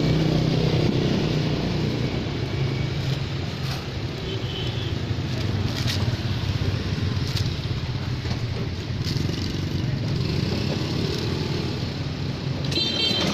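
Street traffic noise: motor vehicles, motorcycles among them, running steadily close by, with an engine hum strongest near the start. A few light clicks come through, and faint voices sit in the background.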